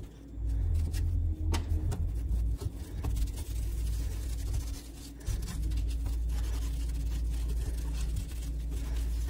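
Microfiber cloth rubbing over a stainless steel gas hob around a burner, heard mostly as a low, uneven rumble of wiping, with a couple of sharp clicks about one and a half seconds in.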